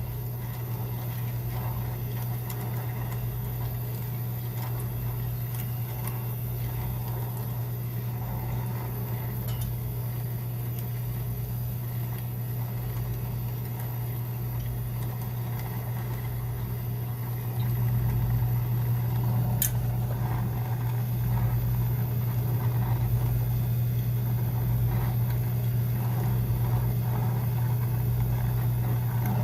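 A machine's motor hums steadily, getting louder about two-thirds of the way through.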